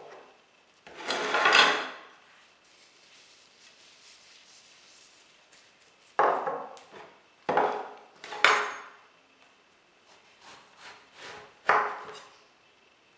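Food preparation by hand: a rubbing scatter of fine salt about a second in, then a string of short, sharp scrapes and knocks as slices are laid on a plate and a kitchen knife cuts through a peeled round aubergine against the stone countertop.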